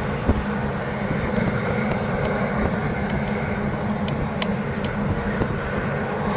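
The twin turboprop engines of a J-AIR Saab 340 airliner run at low power, making a steady drone.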